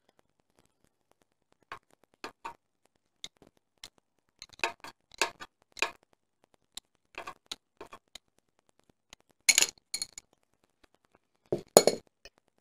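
Irregular small clicks and taps of metal hand tools worked at a motorcycle wheel's newly fitted rubber tyre valve. The loudest clusters of clicks come about two-thirds of the way through and again near the end.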